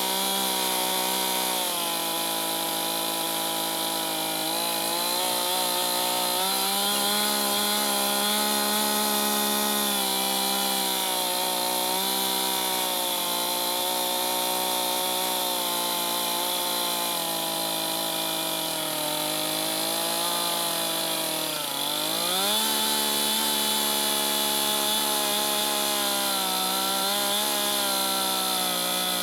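Two-stroke chainsaw running at high revs while cutting a log, its engine pitch wavering slightly. About three-quarters of the way through, the pitch dips sharply and then climbs back.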